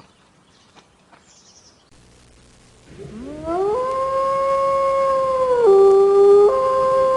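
A dog howling: about three seconds in, one long howl starts low, rises, then holds a steady pitch, dropping briefly to a lower note near the end before returning.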